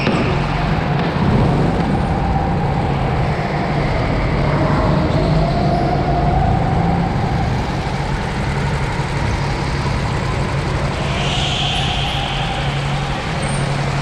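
Indoor rental go-kart motors running at low speed, a steady low drone with a slowly wavering higher tone, and a brief hiss near the end.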